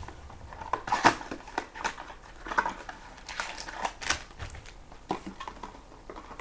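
Hands handling foil-wrapped trading card packs and cards on a table: irregular crinkles, clicks and light taps.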